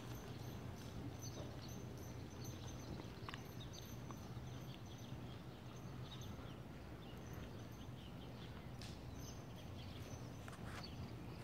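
Faint, muffled hoofbeats of a ridden horse moving over the sand footing of an indoor arena, over a steady low hum.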